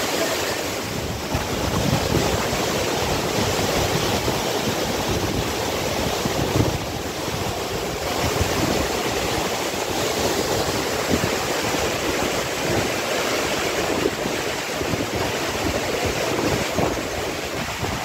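Steady loud rush of a tall waterfall and the white-water stream below it running over rocks, with wind buffeting the microphone in low rumbles.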